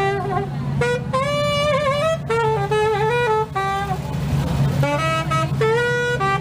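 Saxophone playing a blues melody in short phrases with bent, sliding notes, over a steady low accompaniment.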